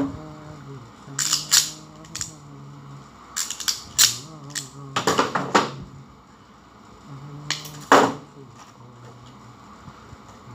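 Sharp clicks and snaps of hands working wires into the DIN-rail terminal blocks of an elevator control panel, in clusters about a second in, around four to five seconds in, and once more near eight seconds, over a faint low hum.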